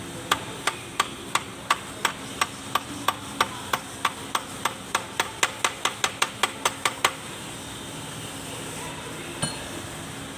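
Propeller shaft being spun by hand on its new ball bearing, giving about two dozen sharp, even ticks that come quicker and quicker and stop about seven seconds in. A single tick follows near the end.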